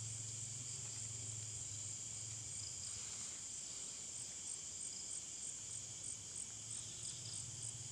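Crickets and other night insects chirring steadily with a regular pulse, over a faint low hum.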